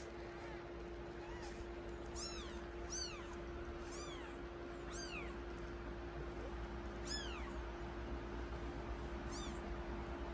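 Newborn British Shorthair kittens mewing: about a dozen short, high-pitched mews that rise and fall, often in quick pairs, thinning out after the first half.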